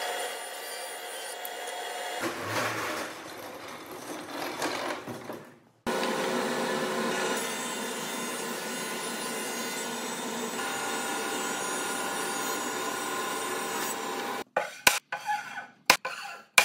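A table saw cutting old barnwood, its sound changing about two seconds in. Then a King 20-inch planer with a spiral cutterhead runs steadily as a board feeds through. Near the end come several sharp knocks of a wooden beam being set on a workbench.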